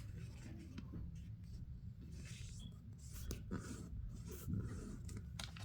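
A sheet of paper being folded and creased by hand: faint rustling and sliding of the paper with a few soft crinkles.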